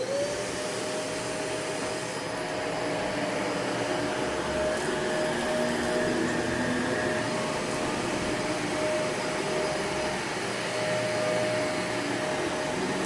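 Household vacuum cleaner switched on, its motor whine rising as it spins up and then running steadily.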